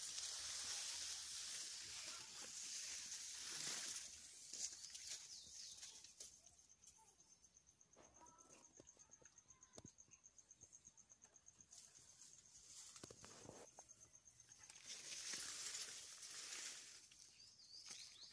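Quiet field ambience: a soft rustling hiss of foliage at the start and again near the end. In between, a faint, steady, high-pitched insect trill pulses evenly.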